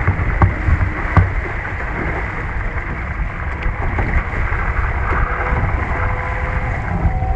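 Wind buffeting the boat-mounted microphone and water rushing past the hull of an F101 foiling sailboat gathering speed, with a couple of sharp knocks in the first second and a half. A faint steady whine comes in about five seconds in.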